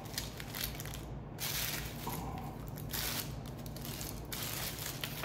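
Plastic packaging being pulled off and unwrapped, crinkling and rustling in irregular spells.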